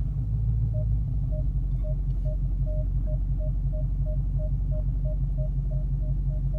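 Supercharged 6.2-litre HEMI V8 of a 2019 Dodge Challenger SRT Hellcat Redeye running with a steady low rumble, while the rear park-assist chime beeps, starting about a second in and quickening to about three beeps a second: the warning that the car is backing closer to an obstacle behind it.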